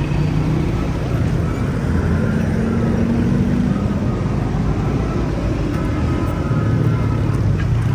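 Steady low rumble of a motor vehicle's engine, with a higher hum rising in about two seconds in and fading out again.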